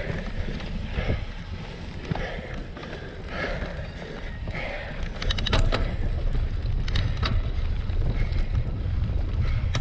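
Cyclocross bike ridden over a wet, muddy course, with wind rumbling on the microphone, growing louder about halfway. The rider's heavy breathing comes about once a second, and a few sharp rattling clicks from the bike come in the second half.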